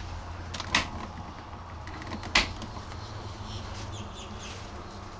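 Two sharp clicks about a second and a half apart as the switch of a roof vent fan is pressed; the fan does not start because its power is disconnected. A steady low hum runs underneath.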